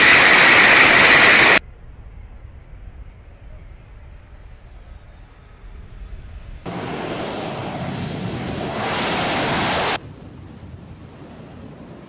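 Military jet noise in abruptly cut clips: a loud rush that stops suddenly about one and a half seconds in, a quieter rush, then a louder jet roar from about seven seconds that grows brighter near nine seconds and cuts off at ten.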